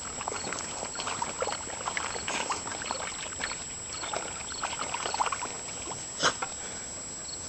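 Dogs splashing and sloshing about in a muddy puddle, in irregular wet splashes, with one sharper click about six seconds in.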